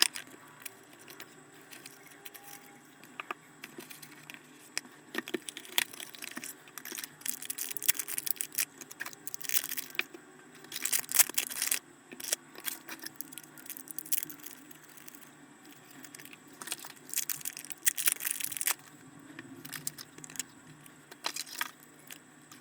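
Handling noise from unboxing a dash cam: irregular rustling, scraping and clicks of packaging and small parts being moved and opened, with louder bursts around the middle and again later.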